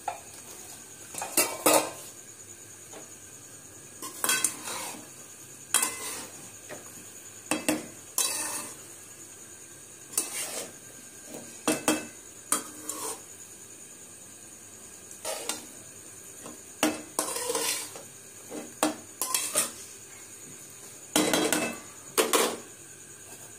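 A spatula scraping and knocking against a metal cooking pan as frying okra is stirred, in irregular strokes every second or two, over a faint steady sizzle.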